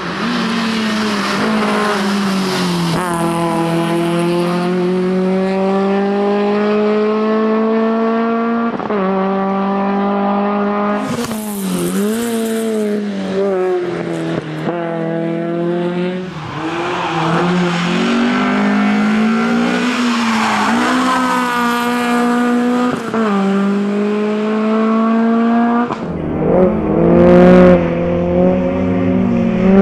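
Peugeot 306 rally car engine revving hard at high load, its pitch climbing and dropping back again and again as it shifts gears and lifts for corners, with tyre squeal.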